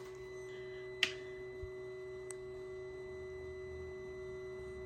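BMW S1000RR motorcycle with its ignition switched on, giving a steady high electrical hum. There is a single sharp switch click about a second in.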